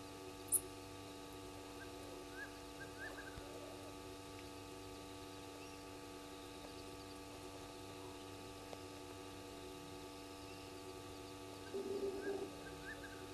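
Quiet night ambience under a steady electrical hum, with scattered faint chirps and one sharp high click about half a second in. Near the end comes a brief buzzy whir, the remote camera's pan-tilt-zoom motor moving.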